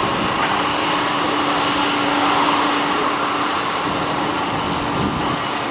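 Jet engines of an Airbus A321neo, Pratt & Whitney geared turbofans, running on the runway: a steady, loud rushing noise with a steady low hum underneath.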